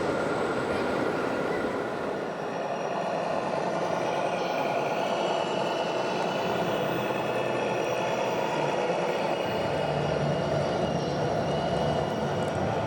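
1/14-scale RC construction machines and trucks running: a steady whine of small electric motors and gearboxes over continuous hall noise, with a lower engine-like hum from the models joining about ten seconds in.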